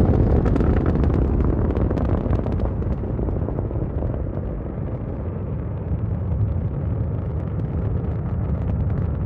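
Saturn V rocket's five F-1 first-stage engines thundering during launch: a deep, continuous rumble shot through with sharp crackling, easing a little after the first few seconds.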